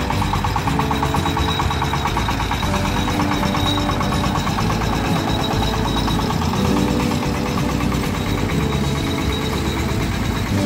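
Single-cylinder diesel engine of a Kubota-type hand tractor (kuliglig) running steadily under load as it pulls a loaded trailer, with a fast, even beat.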